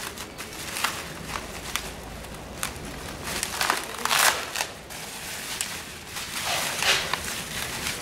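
Plastic packing film crinkling and rustling as it is cut and pulled off a stretched canvas: a string of short crackles, with louder rustles about four seconds in and again near seven seconds.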